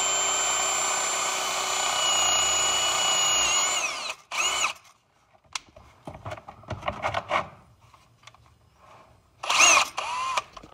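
Electric drill boring through the plastic filter cap of a Hydro-Gear hydrostatic transmission. It runs steadily for about four seconds and then winds down. After a pause with a few quiet clicks, two short blips of the drill come near the end, making a drain hole in the stripped cap.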